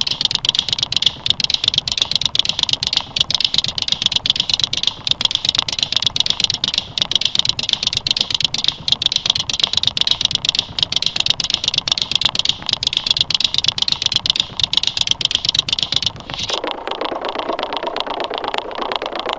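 Fast, continuous clicking like typing on a computer keyboard. About sixteen seconds in it gives way to a steady rushing hiss.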